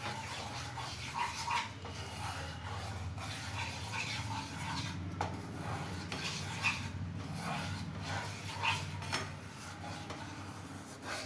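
A wooden spatula stirs and scrapes thick whole-wheat flour roasting in ghee in a nonstick kadhai, over a steady low hum. Short high-pitched sounds come and go throughout, with a sharp click about five seconds in.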